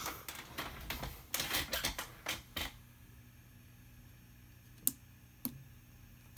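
A quick run of small clicks and rattles for about two and a half seconds, then two single sharp clicks near five seconds in, like hands handling a small electronics project and its wiring.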